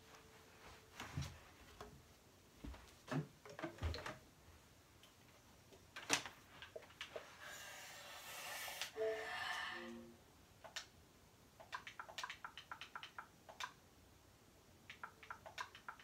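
Handling noise from a phone camera being turned and moved, with scattered soft clicks and taps. There is a rustle about halfway through, a few short faint tones just after it, and a quick run of clicks near the end.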